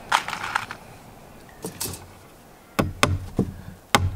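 Hammer driving a nail into a new timber deck board: a few light taps, then from under three seconds in a run of sharp strikes about half a second apart.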